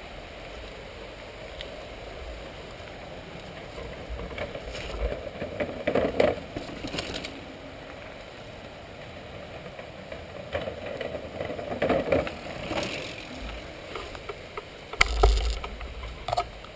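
Mountain bike being ridden over rough trail: a steady rolling noise from the tyres, with clusters of rattles and knocks from the bike around six and twelve seconds in, and a heavy thump with clatter near the end.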